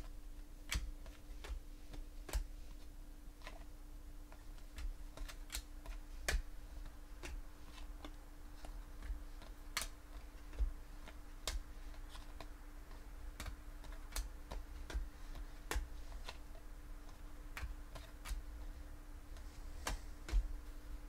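2014 Panini Prizm football cards being flicked off a hand-held stack and dealt onto piles on a table: irregular sharp clicks and card snaps, about one or two a second, over a faint steady hum.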